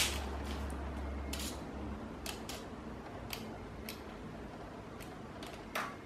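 Faint handling of a tape measure and a fan's power cord: a scattered series of small clicks and taps, the strongest near the end.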